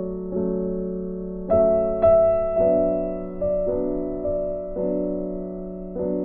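Background music: slow, sustained piano chords, a new chord struck every second or so.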